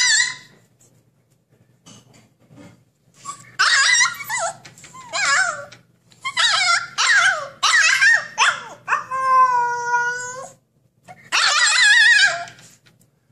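Husky puppy crying to be let out of its pen: a run of high, wavering whines and yips in short groups, with one longer drawn-out wavering cry about nine seconds in.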